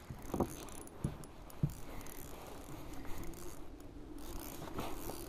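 Faint handling noise in a kayak: three light knocks in the first two seconds, then soft steady rustling.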